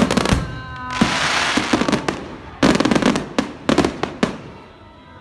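Aerial fireworks shells bursting in quick clusters of sharp bangs, with a stretch of dense hissing crackle about a second in, dying away in the last second.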